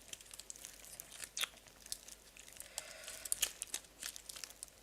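Plastic ice cream wrapper crinkling and being torn open: scattered small crackles, with a few sharper ones about a second and a half in and again past the three-second mark.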